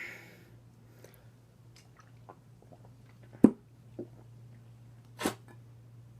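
A person drinking Diet Coke from a bottle, with mouth and swallowing sounds: a breath at the start, scattered small clicks, a sharp click about three and a half seconds in, and a short rush of breath about five seconds in. A steady low hum sits underneath.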